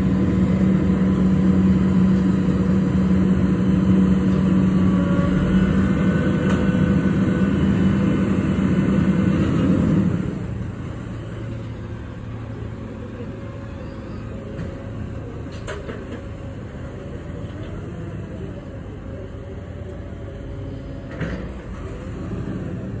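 Natural-gas-powered garbage truck engine running with a loud, steady hum. About ten seconds in it drops to a quieter, wavering drone.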